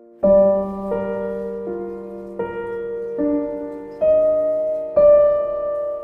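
Background piano music: gentle chords struck roughly once a second, each note ringing on until the next.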